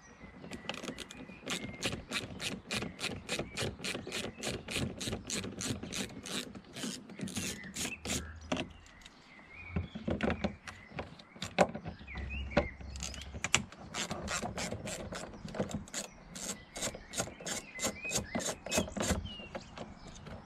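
Small hand ratchet with a T20 Torx bit clicking rapidly, about four clicks a second, as it turns out door-trim screws. The clicking breaks off briefly about halfway through, then runs on.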